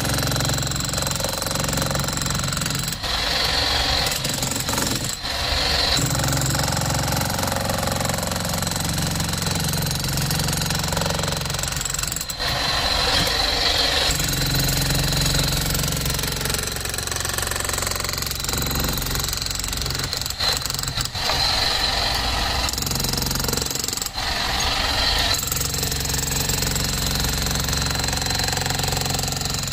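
Bosch GSH 11 E corded electric demolition hammer hammering continuously as its chisel breaks up a concrete slab.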